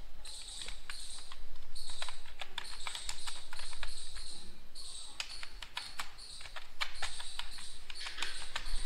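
Computer keyboard keystrokes: irregular quick clicks of keys being typed, over a high hiss that comes and goes.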